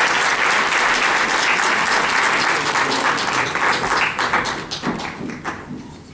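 Audience applause, dense and steady, thinning out to a few last claps about five seconds in.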